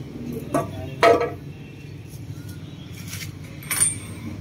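Metal hand tools and sockets clinking and knocking as they are handled in a socket-set case on a concrete floor: about four separate knocks, the loudest a little after a second in, and a short ringing metallic clink near the end.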